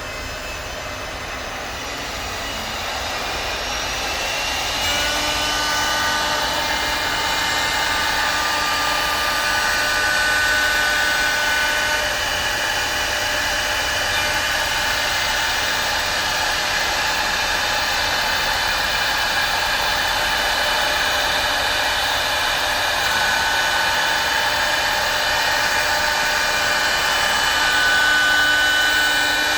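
A CNC router spindle on a wood lathe starts working. Its noise grows louder over the first few seconds, then it runs steadily with a high whine while it cuts groove lines into a wooden cylinder.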